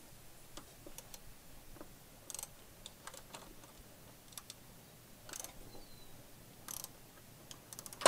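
Faint, irregular clicks and taps of a hand tool working the metal clamp on a car battery's negative terminal as it is tightened, with a quick run of clicks near the end.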